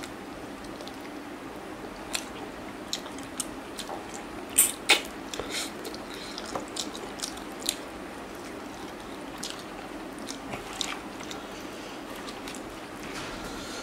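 A person chewing and eating chicken and rice by hand: scattered wet mouth clicks and smacks, with two sharp loud smacks close together about halfway through.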